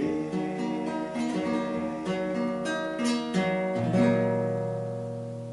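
Instrumental guitar ending of a hymn: a few picked and strummed notes, then a final chord about four seconds in that is left ringing and slowly fades.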